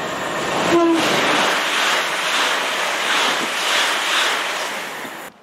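Passenger train passing through a station at speed: a loud rush of wheel and air noise that swells and eases in waves as the carriages go by, with a brief tone about a second in, cutting off suddenly near the end.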